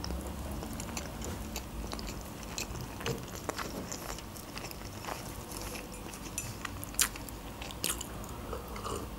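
Close-miked chewing of boiled egg, with small wet mouth clicks. Near the end comes a sip from a glass mug.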